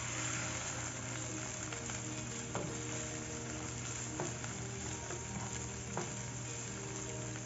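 Sliced onions and bell peppers sizzling steadily in hot oil in a frying pan as they are stir-fried with a spatula, the spatula knocking sharply against the pan three times.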